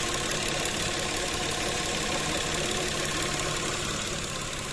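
Mitsubishi Mirage G4's three-cylinder MIVEC petrol engine idling steadily under the open hood, with a fast light ticking.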